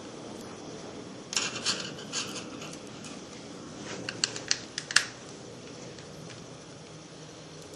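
Small clicks and scrapes of a tri-wing screwdriver working screws out of a Nintendo DS Lite's plastic shell, in two brief clusters about a second and four seconds in, over a steady low hiss.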